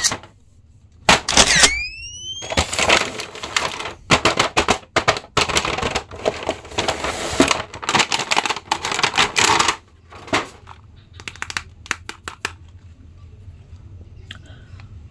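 Stiff clear plastic blister packaging crinkling and crackling as it is pulled open by hand to free a Hulk action figure, with scattered sharp plastic clicks near the end. A brief rising whistle-like sound comes about a second and a half in.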